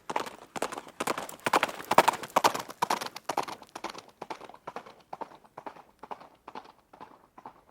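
A horse running, its hooves striking the ground in a quick, uneven rhythm. The hoofbeats grow louder up to about two seconds in, then fade away as the horse moves off.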